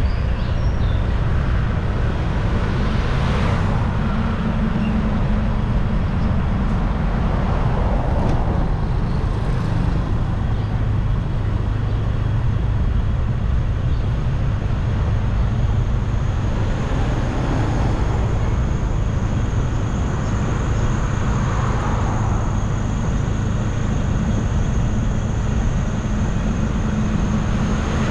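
Riding a motorbike in traffic: a steady low rumble of engine, road and wind noise, with other vehicles swelling past a few times.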